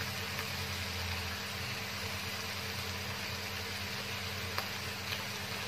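Shredded jicama and carrot frying in a wok with a steady, even sizzling hiss over a low steady hum, and a couple of faint ticks near the end.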